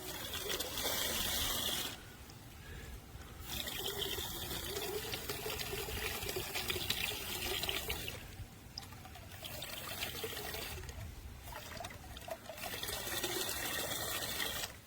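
Water from a garden hose running into a bucket as it fills. The flow goes quieter for a second or so several times.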